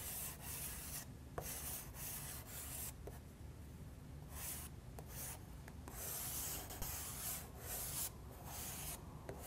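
Faint scratchy rubbing of a chunky Derwent XL charcoal block worked back and forth across smooth pastel paper, colouring in an area in repeated strokes with short pauses between them.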